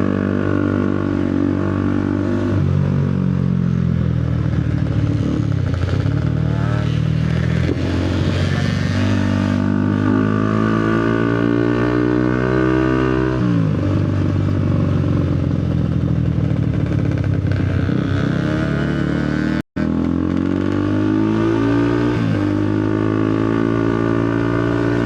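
Motorcycle engine under way, its pitch climbing as it accelerates and dropping back sharply several times, as at gear changes. The sound cuts out for an instant about 20 seconds in.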